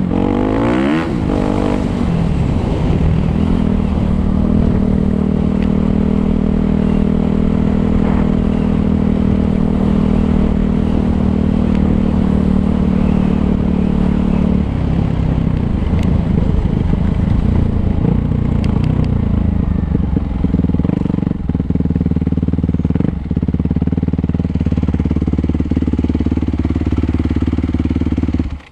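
Suzuki 250 motocross bike engine running hard: the revs sweep up and down at first, hold steady and high for about ten seconds, then drop and climb again in shorter swings as the throttle is eased and reopened.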